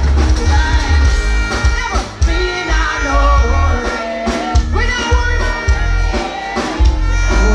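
Live band music over a loud stage sound system with a woman singing into a microphone, heard from within the audience, with a heavy bass line that drops out briefly around four seconds in.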